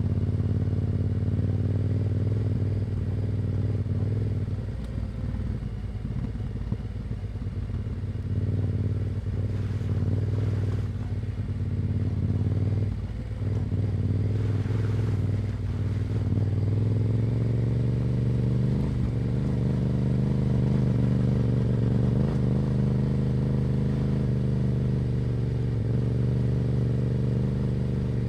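Yamaha Ténéré 700's 689 cc parallel-twin engine running through an Akrapovic exhaust, holding a fairly steady note, which settles slightly higher and smoother about two-thirds of the way through.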